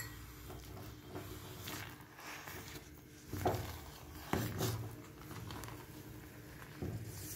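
A ladle stirring and mashing ghee into thick, freshly cooked rava kichadi in a clay pot: soft squishing with a few scrapes and knocks against the pot, the strongest from about halfway in.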